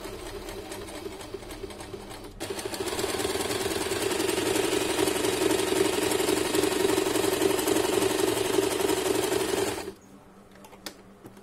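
Usha Janome Stitch Magic electric sewing machine sewing a zigzag-type pattern under foot-pedal control. It runs at a lower speed at first, then about two and a half seconds in speeds up to a fast, even needle rattle, and stops suddenly near the end, followed by a couple of faint clicks.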